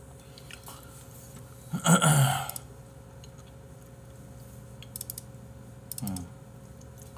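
A loud burp about two seconds in, then a few faint clicks.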